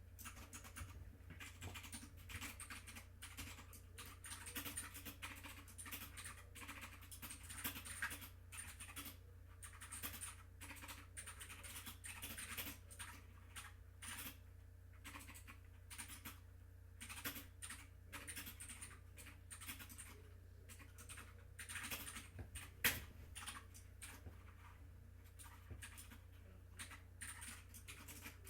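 Quiet, rapid, irregular clicking of buttons being pressed, with one sharper click about 23 seconds in, over a faint steady electrical hum.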